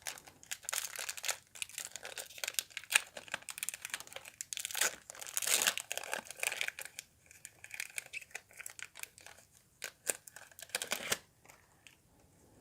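Foil booster pack wrapper being torn open and crinkled, a dense run of crackling that stops about eleven seconds in.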